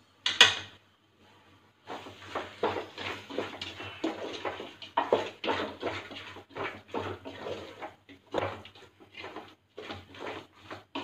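One loud clatter just under half a second in, then a spoon scraping and stirring raw chicken pieces through thick masala in an aluminium pot, in quick irregular strokes.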